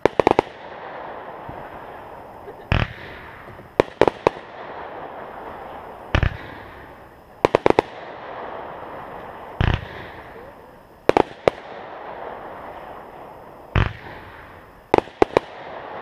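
Aerial fireworks shots repeating about every three and a half seconds. Each single launch thump is followed about a second later by a cluster of sharp bursting cracks, with a steady crackling hiss from the bursting stars between shots.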